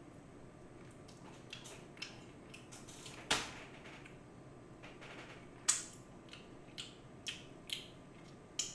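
Eating sounds from BHC Bburinkle seasoned fried chicken: scattered crisp crunches and mouth clicks while chewing, the sharpest about three and six seconds in.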